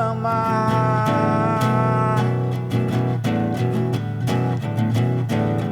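A man singing in Portuguese over strummed acoustic guitar, holding a long note and then singing the word 'amar' about two seconds in.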